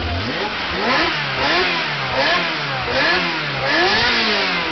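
Ferrari Spider's engine being blipped from idle again and again, its pitch sweeping up and dropping back about once every 0.7 seconds.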